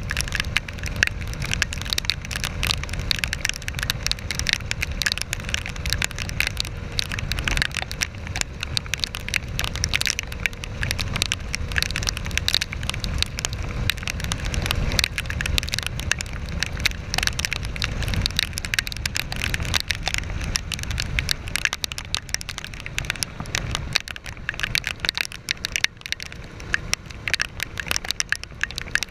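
Heavy rain striking a GoPro camera housing at speed on a moving KTM Duke 390: a dense, irregular crackle of drop impacts over a steady low rumble.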